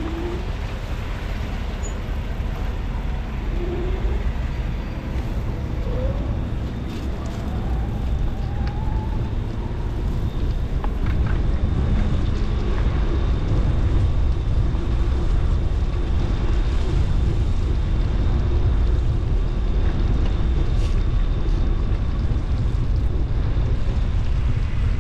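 Steady low rumble of wind on a helmet-mounted camera microphone while cycling, mixed with passing road traffic; it grows louder about halfway through.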